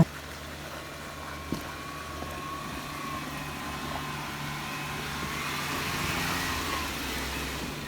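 Vehicle engine running steadily, with a thin wavering whine above it; it grows louder toward about six seconds in, then eases off. One small knock about a second and a half in.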